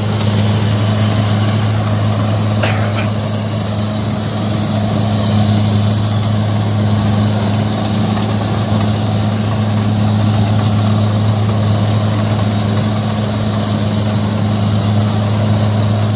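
Kubota DC60 rice combine harvester running, a steady loud engine drone with a low hum over the noise of its machinery; one short click a few seconds in.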